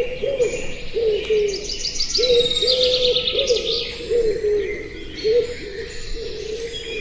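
Birds calling: a low cooing call repeated over and over, with higher, fast chirping trills about two to four seconds in.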